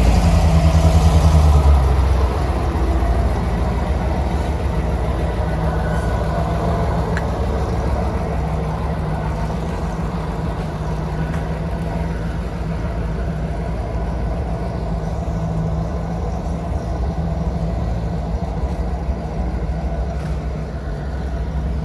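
Engine of an old GAZ truck running at low revs as the truck rolls slowly forward, a steady low drone that is loudest in the first couple of seconds.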